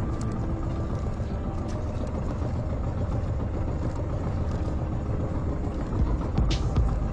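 A small boat engine running steadily, with a louder rumble about six seconds in.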